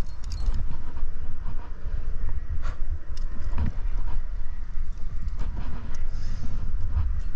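Wind rumbling on a helmet camera's microphone, with scattered clinks and scuffs as a climber moves up a granite crack with cams and carabiners racked on the harness.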